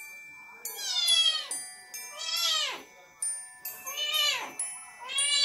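Kitten meowing repeatedly: four calls, about one every second and a half, each rising and then falling in pitch.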